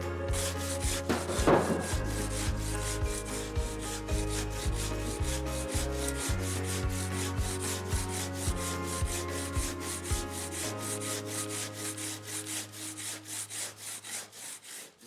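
Handsaw cutting through soft stone in quick back-and-forth strokes, several a second, growing fainter near the end.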